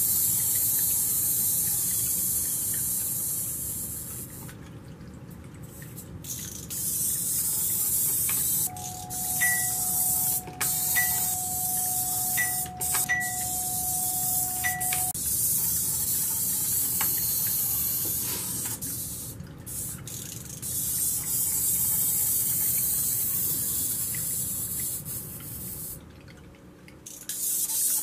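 Water trickling and splashing steadily in a small tabletop fountain, dipping briefly a few times. For several seconds in the middle, a thin steady tone with a few short chirps sounds over it.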